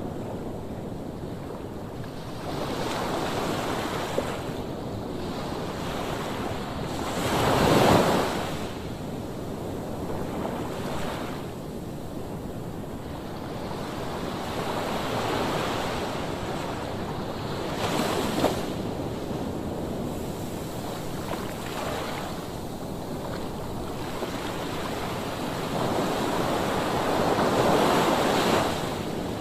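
Sea waves breaking and washing onto the shore, surging and ebbing every few seconds, the biggest surge about eight seconds in and another near the end.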